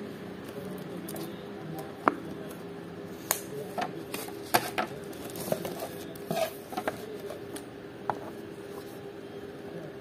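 Hands handling and turning a cardboard smartphone box, with scattered sharp taps and short scrapes of fingers and box edges, over a faint steady hum.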